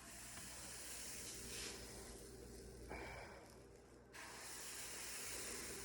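Faint, steady sizzling hiss of pancake batter frying in a hot pan, thinning out in the middle and coming back about four seconds in.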